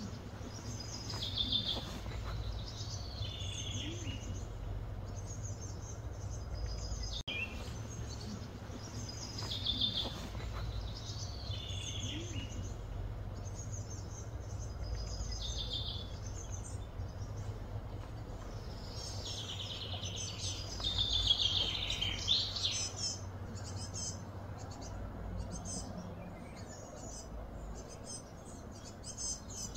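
Birds calling and chirping in short phrases of high, falling notes every couple of seconds, busiest about twenty seconds in, over a steady low background rumble.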